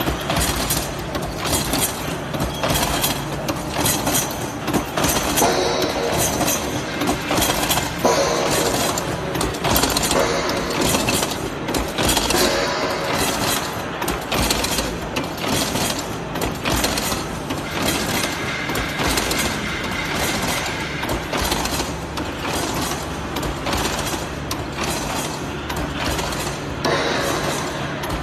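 Hexagonal wire netting machine running, its twisting mechanism clattering with a steady stream of rapid metallic knocks and clinks.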